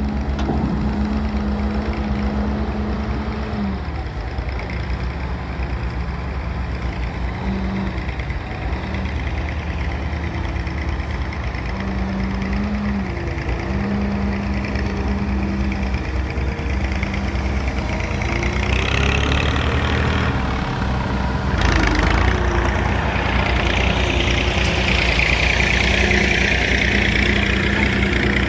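Diesel engine machinery of an excavator loading a tractor trolley, running continuously with its pitch stepping up and down as the load changes. About two-thirds of the way through, a higher hissing whine joins in and holds to the end.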